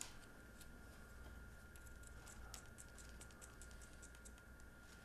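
Near silence: faint room tone with a steady hum and scattered light clicks of small metal engine parts being handled.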